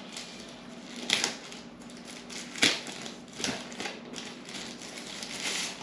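Cardboard and plastic packaging being handled as a remote controller is taken out of its box: a few short, sharp rustles and clicks, irregularly spaced, over a faint steady hum.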